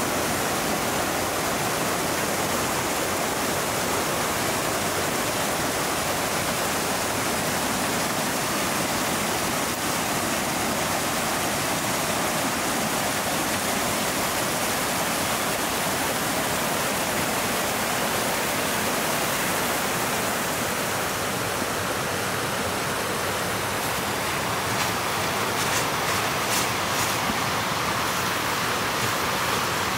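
Water rushing steadily over a small waterfall and down a shallow stream. Near the end come a few faint, crisp crunches, as of boots stepping in snow.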